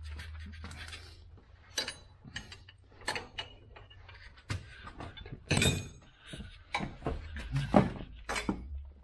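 Irregular metal clicks and clinks of a wrench working the clamp bolts that hold a metal planer's head to its column, over a steady low hum.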